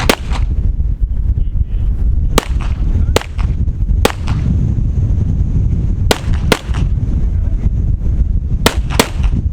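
Pistol shots fired at an irregular pace as a shooter works through a stage, about eight sharp cracks, some in quick pairs. Wind rumbles on the microphone underneath.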